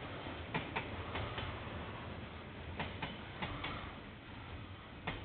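A train passing on the line, its wheels clicking over rail joints at uneven intervals, several clicks in close pairs, above a low rumble that slowly fades as it draws away.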